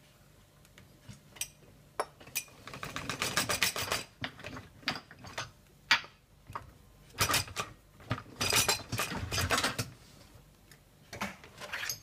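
Loaded dishwasher racks being moved on their rails, the dishes and utensils in them clattering and rattling in several bursts of a second or two.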